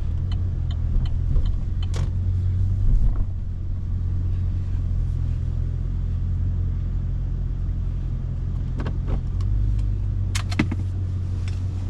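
Holden Caprice 6-litre V8 with J-pipe exhaust running on the road, a steady low rumble with a brief swell about three seconds in.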